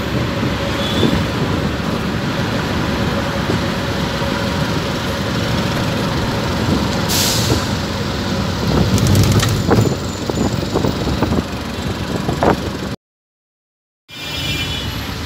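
Street traffic noise: car and motorbike engines and tyres passing, with a brief hiss about halfway through. The sound cuts out for about a second near the end.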